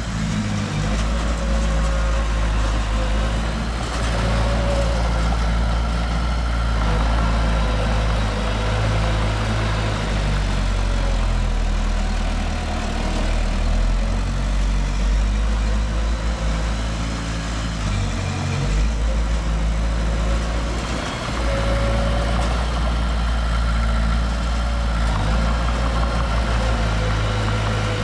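Diesel engine of heavy earthmoving machinery running steadily at a low, even pitch, with brief dips in level about two-thirds of the way through.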